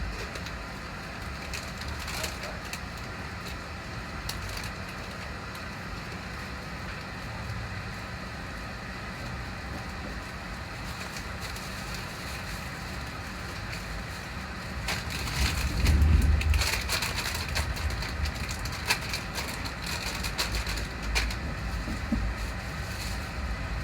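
Passenger train running, heard from inside an LNER High Speed Train carriage: a steady low rumble with occasional clicks, growing louder about fifteen seconds in with a spell of rattling and knocking.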